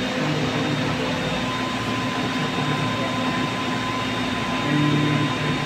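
Steady, loud machine noise in a workshop: an even rushing hiss with a faint high whine held throughout.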